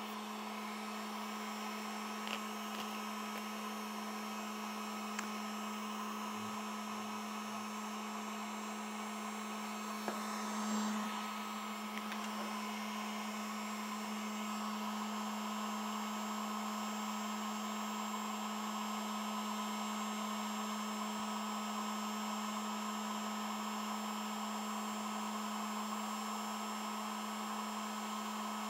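Harbor Freight electric heat gun running steadily, standing nozzle-up on the bench: an even fan whir with a low hum. A few small knocks sound over it, the loudest about ten seconds in.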